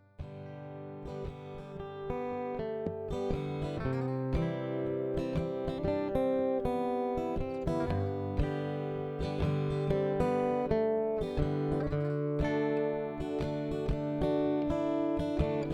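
Autoharp strummed in chords, one strum after another, with the chord changing every few seconds.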